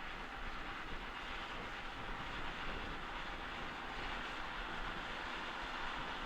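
John Deere 6150 tractor working with a five-furrow plough, its engine and the plough running steadily and growing slightly louder.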